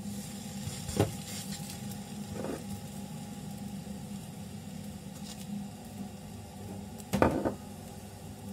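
Meloui dough cooking in a hot pan with a faint, even sizzle over a steady low hum. Two sharp knocks sound, about a second in and again near the end.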